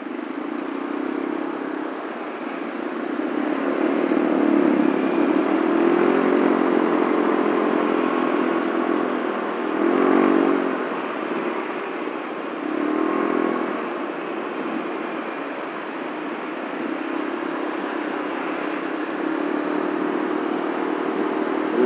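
Yamaha Mio Soul automatic scooter's engine, heard from the rider's seat while riding in slow city traffic. Its pitch rises and falls several times as the rider opens and closes the throttle, most strongly about ten seconds in, over a steady rush of road noise.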